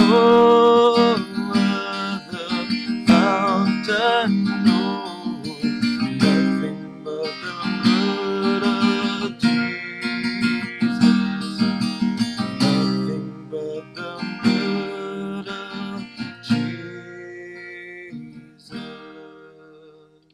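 Acoustic guitar music, strummed, growing quieter over the last few seconds before it stops.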